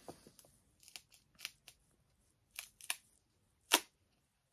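Old paperback books being handled and pulled apart, their covers stuck together: a string of short, crisp paper rustles and clicks, the loudest about three and a half seconds in.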